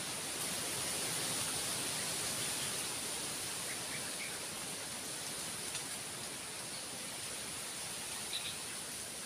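Forest ambience: a steady high-pitched hiss or drone, with a few short bird chirps about four seconds in and again near the end.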